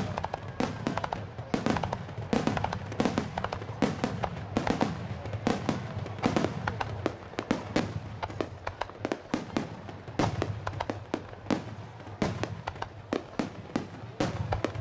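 Starmine fireworks barrage: aerial shells launching and bursting in rapid succession, several sharp bangs a second overlapping one another with no pause.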